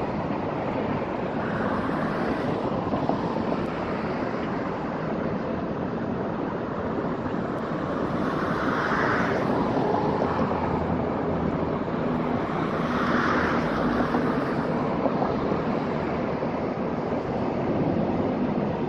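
Steady road traffic noise with wind buffeting the microphone, and several passing vehicles swelling up and fading, near the start and twice in the middle.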